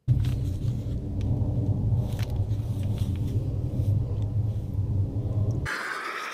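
A loud, steady low rumble with scattered clicks, which cuts off suddenly near the end. Then a softer hiss as iodized salt pours in a stream into a bucket of water.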